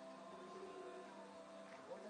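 Faint background music with long held notes.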